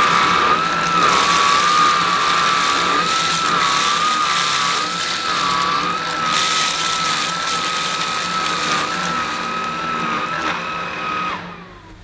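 Bosch Unlimited BCS111GB cordless stick vacuum running on its lowest power setting as it sucks up dry rice, lentils and rolled oats from a rug: a steady motor whine over a rush of air, wavering slightly in pitch as the brush head is pushed back and forth. It switches off near the end, the whine falling away.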